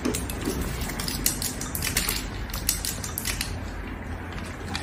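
A dry dog treat crunching, a quick run of crisp crackles and clicks.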